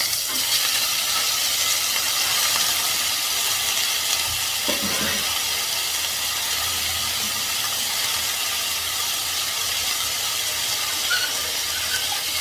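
Whole spices and dried red chillies sizzling steadily in hot oil in a pan, the tempering stage of a curry.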